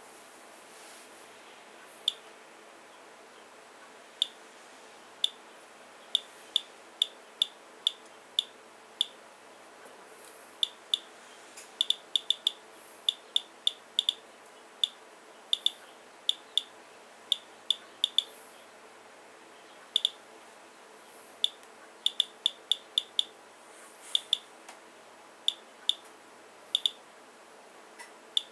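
Geiger counter chirping once for each detected count: short high beeps at random, uneven intervals, bunching and then spacing out, a little under a hundred a minute. This is the count rate from the rain sample, which averages about 85 counts per minute against a room background of about 33.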